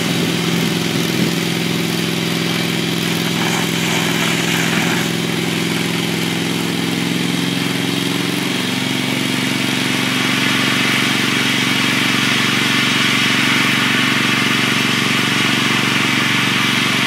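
Portable compressed-air foam system running under load, its engine-driven pump and compressor running steadily under the hiss of the dry foam stream discharging from the hand line. About halfway through, the engine note shifts slightly and the sound grows a little louder.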